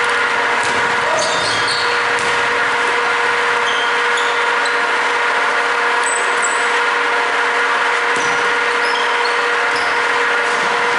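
Steady droning background noise with a constant hum. Over it come short, high squeaks of basketball shoes on the hardwood court, several times over.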